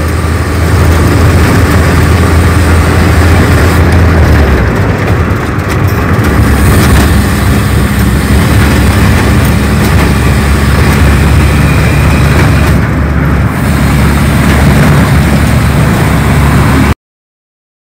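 Toyota 4K inline-four engine, running on a motorcycle carburetor, pulling the car along the road, with road and wind noise in the cabin. The engine note shifts about four seconds in and again a couple of seconds later. The sound cuts off suddenly near the end.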